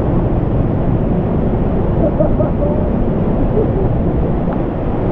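Waterfall pouring, heard close up as a loud, steady rush of water.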